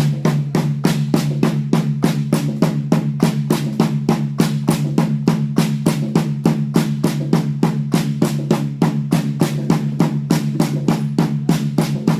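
Bamboo poles of a Karbi bamboo dance clacking together in a fast, even beat, about four to five strikes a second, over a steady low hum.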